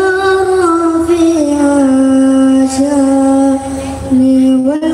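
A boy singing sholawat unaccompanied into a microphone over a PA system, holding long notes that slide slowly from pitch to pitch. There is a brief break a little before the four-second mark.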